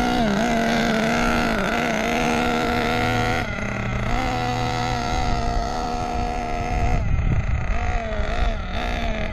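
A new O.S. nitro RC buggy engine running in during break-in, driven gently in slow circuits. Its pitch wavers and dips as the throttle is eased on and off, and near the end it fades behind a low rumble.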